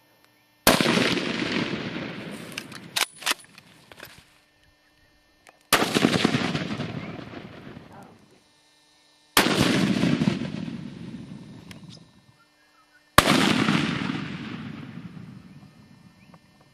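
Four hunting rifle shots, three to five seconds apart, each followed by a long rolling echo that dies away over two to three seconds. Two sharp clicks come a couple of seconds after the first shot.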